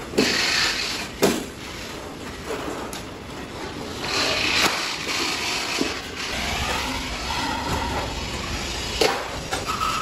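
Galvanized steel sheet being cut with heavy hand shears and handled: sharp metallic snaps near the start and about a second in, then the clatter and scrape of sheets being shifted, with metallic ringing in the second half.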